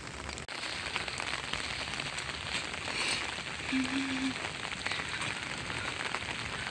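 Steady rain falling, with many small drops ticking on an umbrella overhead.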